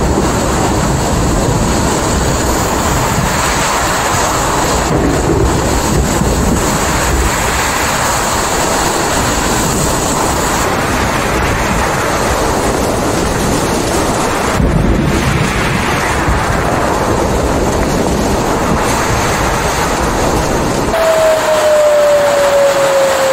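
Strong storm wind buffeting the microphone, with rushing water, as a loud, steady noise that breaks off briefly twice where clips change. Near the end the low rumble drops away and a single tone slowly falls in pitch over the surging floodwater.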